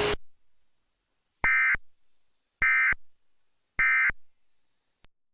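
Emergency Alert System end-of-message signal: three short bursts of warbling digital data tone, a little over a second apart, marking the end of the alert. A faint click follows near the end.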